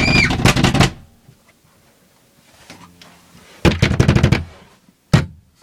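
Brass doorknob rattled hard and fast in two bursts, one at the start and one about four seconds in, with a short high squeal over the first burst. A single thump comes near the end.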